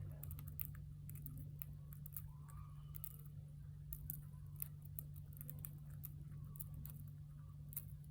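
Lovebirds cracking and husking seeds with their beaks: irregular small, crisp clicks, several a second, over a steady low hum.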